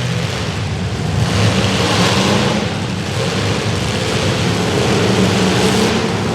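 Demolition derby car engines running and revving, with two louder swells of hissing noise about a second in and near the end.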